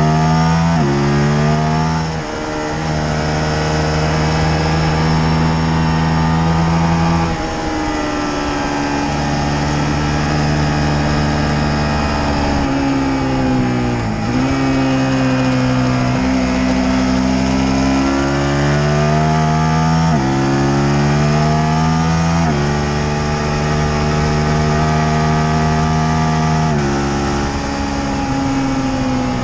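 Motorcycle engine at full throttle on a race track: revs climb and drop sharply at each upshift, fall away under braking about halfway through, then climb through the gears again, with steady wind rush over the microphone.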